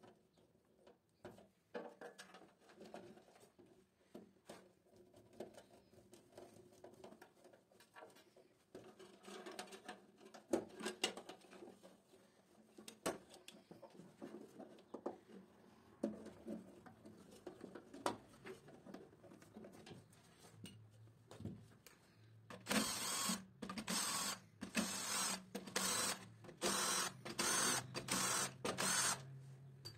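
Light clicks and handling of wires being fitted into terminals. Then, about three quarters of the way in, a cordless drill-driver runs in a quick series of short bursts, tightening the screw terminals of a three-phase RCCB.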